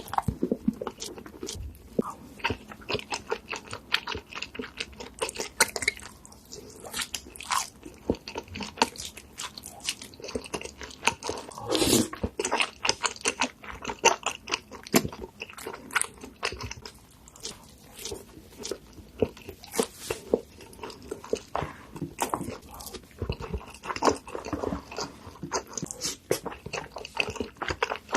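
Close-miked eating sounds: crunchy food being bitten and chewed, with many irregular crisp crunches and a louder bite about twelve seconds in.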